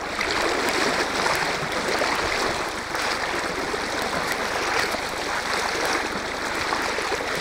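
Steady flowing water of a small stream's current, with the splashing of rubber chest waders stepping through the water.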